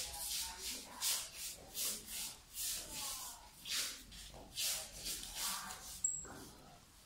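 Shoes sliding and scuffing on a wooden floor during martial-arts footwork: a series of short scrapes, roughly one or two a second.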